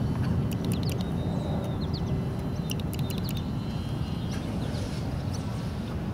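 Low wind rumble on the microphone with short bird chirps scattered through the first half, and a faint steady whine from the electric RC plane's motor flying high overhead.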